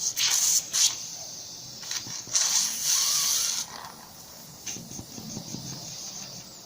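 Medical suction catheter drawing up airway secretions, hissing and sputtering in bursts. There is a short burst at the start, another just before a second in, and the longest from a little past two seconds to about three and a half.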